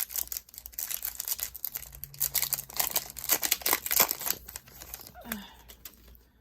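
A baseball card pack's wrapper being torn open and crinkled, a dense run of crackling and rustling that thins out after about four seconds.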